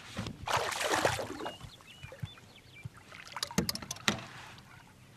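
Water splashing as a hooked smallmouth bass thrashes at the surface beside the boat, loudest about half a second to a second in. A few sharp clicks and knocks follow between three and four seconds in.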